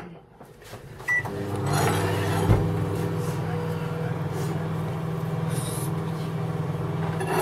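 A microwave oven started with a short beep and then running with a steady electrical hum, with one knock about two and a half seconds in.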